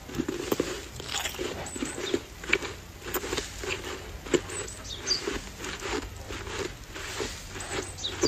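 A mouthful of snow being chewed: a quick, irregular run of crisp crunches.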